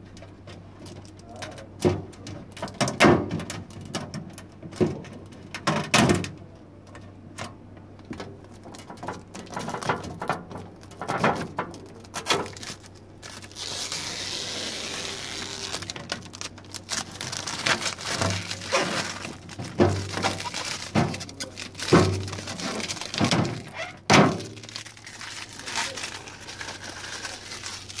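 Protective plastic film being peeled off a refrigerator's clear plastic crisper drawer, with a crackly peeling hiss about halfway through, among repeated knocks and thunks of hands handling the plastic drawer and shelves. A steady low hum runs underneath.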